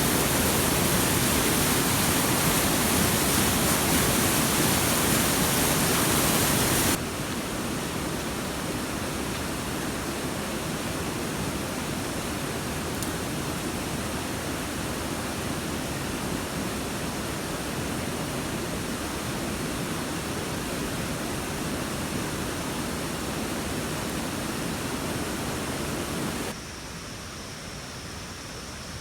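Steady rushing noise with no distinct events, dropping abruptly in level about seven seconds in and again near the end.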